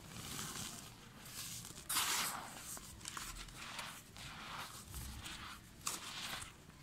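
Fingers pushing into and stirring dry, powdery red dirt: a series of soft gritty hisses and crunches, about one a second, the loudest about two seconds in.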